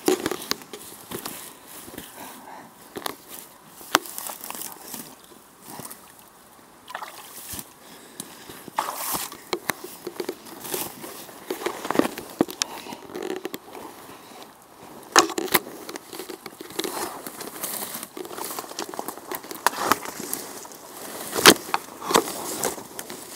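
Footsteps in boots through dry grass, twigs and leaf litter: irregular crackling, snapping and rustling, with a few sharper cracks.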